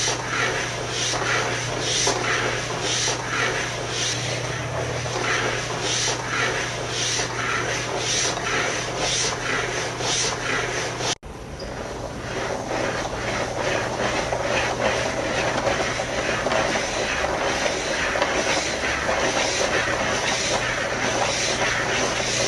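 Hand-cranked PrimoGraf drawing machine at work, its pen scratching across paper in repeating strokes about twice a second over a steady low hum. The sound cuts out for an instant about halfway through, then goes on with closer-spaced strokes.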